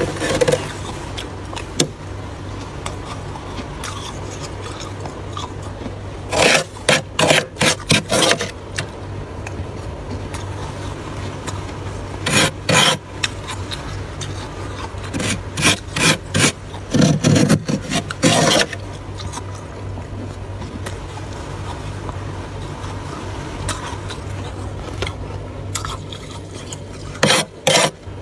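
Thick freezer frost being scraped with a utensil: several clusters of quick rasping strokes with quieter stretches between, over a steady low hum.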